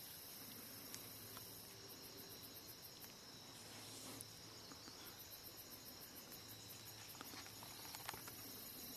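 Faint insect chorus: a steady high whine with two spells of rapid, evenly pulsed chirping, about six pulses a second. A few faint clicks are heard over it.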